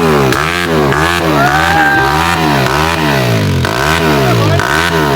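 Dirt bike engine being revved hard over and over, the throttle blipped up and back down in quick succession, roughly one and a half revs a second.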